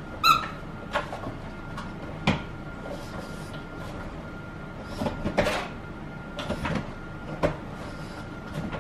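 Boston terrier pawing and nosing at a cardboard box and a nylon backpack inside it, trying to reach a wedged ball: irregular scrapes, rustles and knocks. A short high squeak comes near the start.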